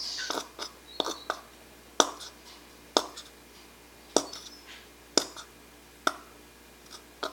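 A stirring utensil knocking against a container while slime is mixed: sharp taps about once a second.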